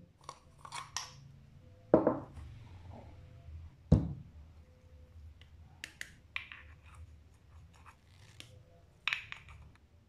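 Plastic and metal parts of a Staresso portable espresso maker being handled: two sharp knocks, about two and four seconds in, as pieces are set down, with small clicks and scraping between them.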